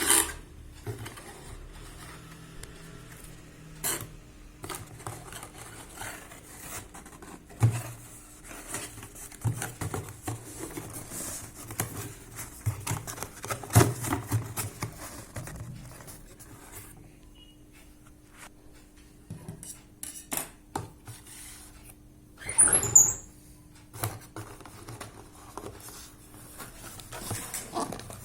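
Hands opening and handling a cardboard product box and its inner packing, with scattered taps, clicks and rustles. There is a louder burst of rustling and scraping a few seconds before the end, over a faint steady hum.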